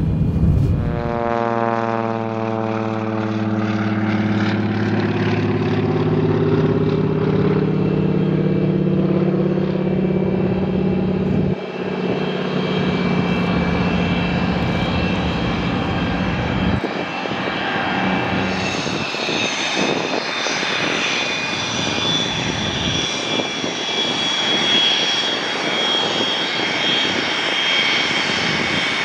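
Aircraft engines in several cut-together shots. First a propeller engine whose pitch falls over the first few seconds and then holds steady. From about two-thirds of the way in comes the high, steady whine of the Hawker Hunter's jet engine as it taxis.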